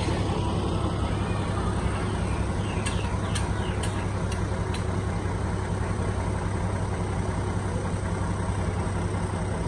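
Small truck's engine idling steadily, a low even rumble. About three to five seconds in come five light clicks.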